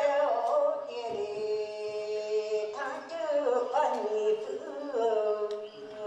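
Singing with music: a voice holding long notes that bend up and down in pitch.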